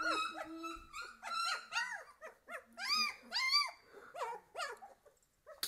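Three-week-old puppies whimpering and squealing: a quick run of short, high cries that rise and fall, several a second, stopping about five seconds in. A single sharp click follows near the end.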